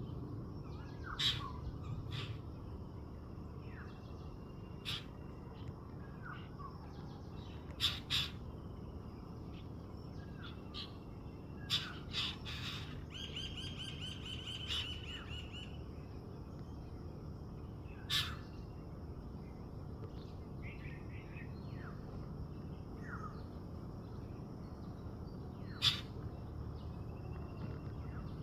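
Birds calling: a handful of short, loud, harsh calls at intervals of several seconds, with smaller chirps, short falling whistles and one rapid trill in between, over a steady high thin hum and low background rumble.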